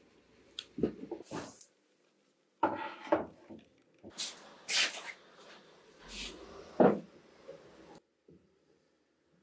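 Workshop handling noises: a series of irregular knocks and clicks mixed with short scraping or rubbing strokes, stopping abruptly about eight seconds in.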